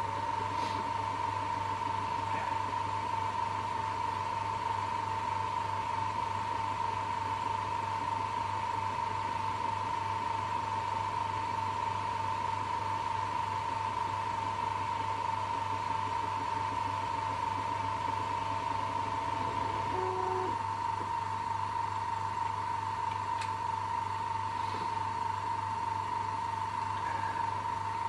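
Ortur Laser Master diode laser engraver etching a bowl with its air assist blowing: a steady high-pitched tone over a low mains-type hum, with a brief change in pitch about 20 seconds in.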